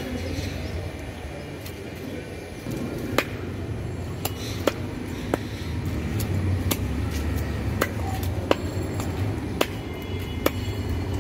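Large fish-cutting knife striking a fish and the wooden chopping block: sharp, irregular knocks, starting about three seconds in and coming every half second to a second, over a steady low rumble.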